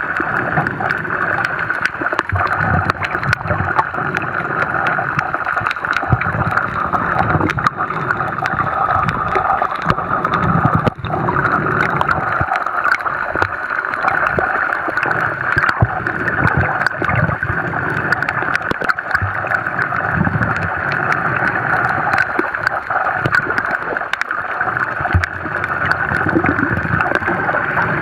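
Underwater sound picked up by a camera in its housing: a steady muffled rush of water with scattered clicks and crackles, and low rumbles coming and going every two to three seconds.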